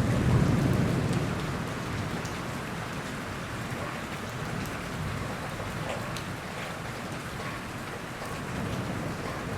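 Steady rain falling, a continuous hiss with scattered drop ticks. A low rumble at the start dies away over the first second or so.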